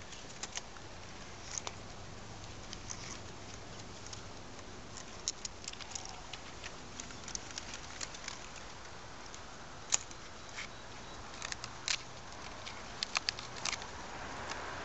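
Scattered sharp crackles and snaps with light rustling from hands working among date palm fronds and the papery casing around a flower bunch. The loudest snap comes about ten seconds in, and there is a quick cluster near the end.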